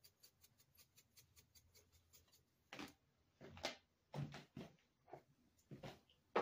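Pepper shaker being shaken, a faint quick rattle of about five shakes a second that stops about two and a half seconds in. It is followed by a few soft knocks and rustles of handling.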